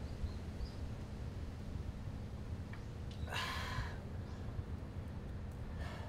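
A person's short breathy exhale about three seconds in, a satisfied sigh after a sip of drink, over a low steady outdoor rumble.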